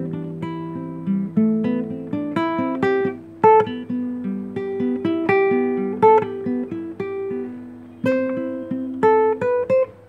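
Classical guitar fingerpicked solo: a melody of single plucked notes, several a second, ringing over held bass notes, with a few sharper accented notes along the way.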